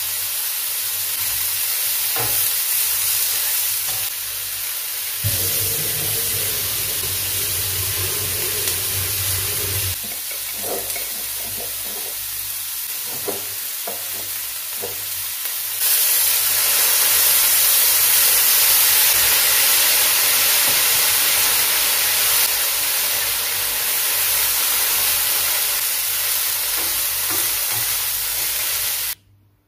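Diced potatoes, meat and sausage sizzling in a nonstick frying pan as they are stirred and turned with a spatula, with scattered scrapes and knocks of the spatula on the pan. The sizzle gets louder about halfway through and cuts off suddenly just before the end.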